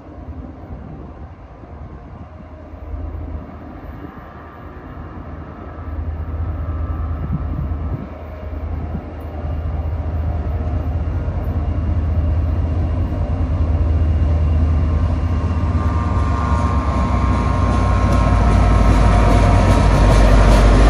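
Diesel-hauled NJ Transit commuter train, led by an EMD GP40PH-2 locomotive, approaching. A deep, low rumble grows steadily louder, stepping up about six and ten seconds in and reaching its loudest near the end.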